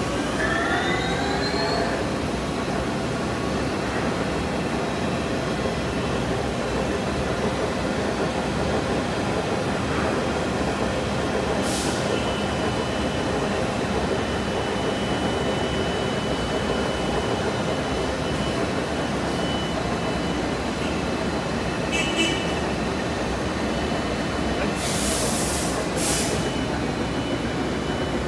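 Viper VTL-16/20M CNC vertical lathe's rotary chuck table spinning up with a rising whine over the first two seconds, then running steadily with a broad mechanical whir. Short hisses come about halfway through and twice more near the end.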